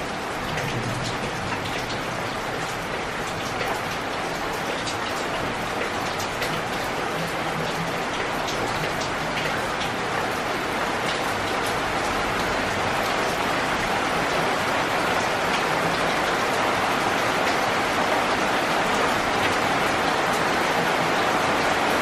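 Steady rain falling on broad leaves, with individual drops ticking sharply close by over the even hiss of the downpour. The rain slowly gets louder.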